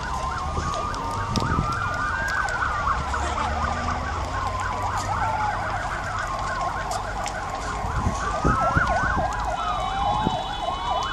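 Several emergency sirens sounding at once, slow rising-and-falling wails overlapping fast yelping cycles, over a low rumble with scattered sharp crackles. A steady high tone joins near the end.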